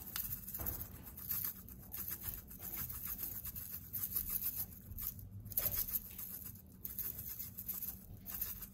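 Spice grinder of Montreal steak seasoning being twisted over meat, giving repeated dry rasping strokes.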